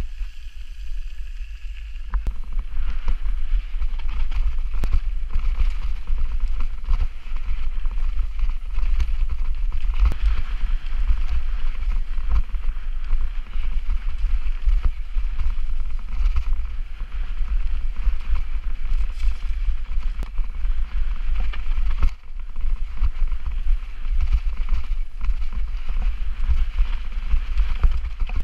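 Mountain bike riding fast down a muddy forest trail: steady wind rumble on the microphone, tyre noise over the wet dirt, and frequent knocks and rattles from the bike over bumps.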